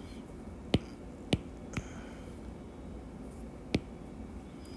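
Four short, sharp clicks, the first three within about a second and the last near the end, over a faint steady room hum.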